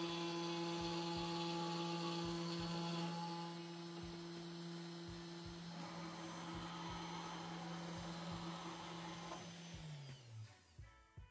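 Desktop CNC router spindle running with a steady whine while its bit engraves lettering into a wooden board. Near the end the spindle winds down and its pitch falls away.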